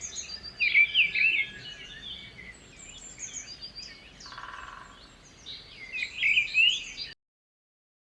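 Many small birds chirping and calling over one another in quick, overlapping notes, with a short buzzing trill about four seconds in. The sound cuts off abruptly about seven seconds in.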